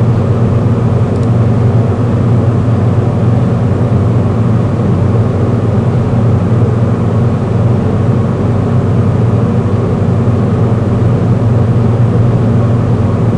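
Steady low hum under a layer of hiss, unchanging and fairly loud, with no clicks or other events standing out.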